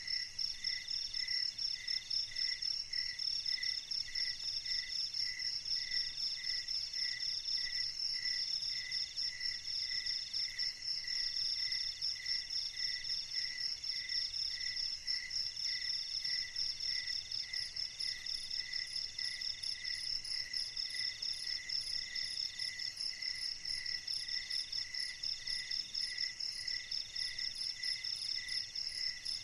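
Night chorus of crickets and other insects. A steady high trill, a lower chirp repeating about twice a second, and a middle trill coming in phrases of about a second.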